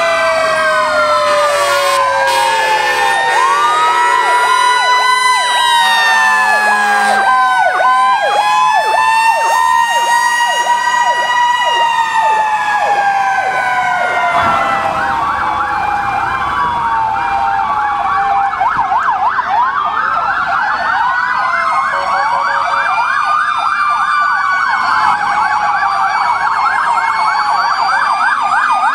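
Several fire truck sirens sounding at once: slow wails rising and falling in pitch overlap one another, and from about halfway a rapid yelp takes over with further wails over it.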